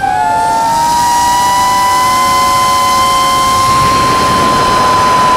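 DJI FPV drone's motors and propellers whining at speed. Near the start, several pitches slide past one another, then they merge into one steady high whine. A rushing hiss of air builds near the end.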